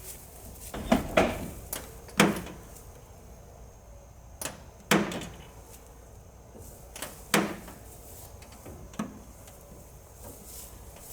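Repaired aluminum shed door being opened and shut several times, with sharp knocks and latch clicks as it closes. It now swings without the handle dragging on the frame.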